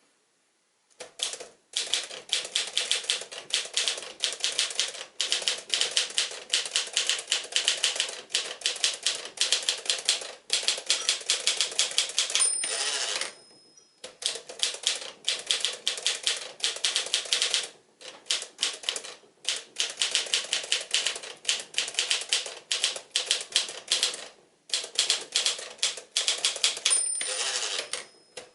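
1954 Smith-Corona Silent portable typewriter being typed on in fast, even runs of key strikes with short pauses. Twice the margin bell rings near the end of a line, followed by the scrape of the carriage being returned.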